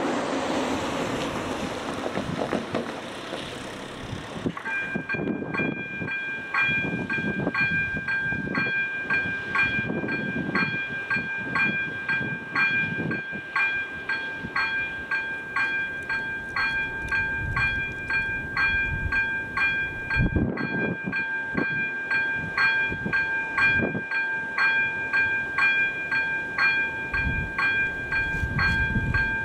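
Level-crossing warning bell (AŽD ZV02 electronic bell) starts ringing about five seconds in, a high ringing tone struck in quick, even repeats that keeps going: the crossing has activated for an approaching train.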